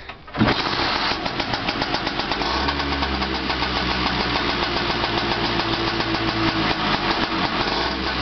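Lambretta SX150's two-stroke single-cylinder engine catching about half a second in and then idling steadily with a fast, even beat, now that the ignition is switched on.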